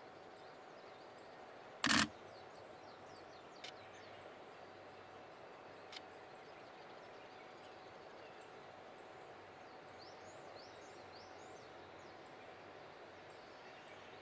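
Quiet outdoor ambience with a steady faint hiss, broken by one sharp, loud knock about two seconds in and two small clicks after it. A few quick high bird chirps come near the end.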